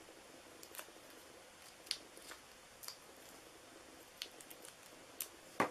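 Fingernails picking and peeling the release paper off small foam adhesive dimensionals on a cardstock circle: faint scattered clicks and ticks, with a sharper click near the end.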